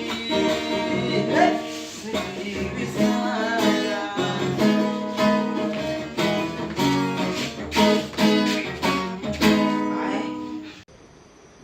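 Acoustic guitar strummed in a steady rhythm, an instrumental passage between sung lines. It cuts off suddenly near the end.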